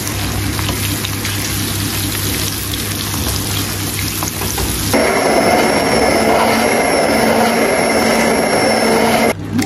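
Diced onion and then tomatoes sizzling in a frying pan as a wooden spoon stirs them. About five seconds in, a hand blender starts abruptly with a steady, loud motor whine, purées the tomato mixture for about four seconds, and cuts off suddenly.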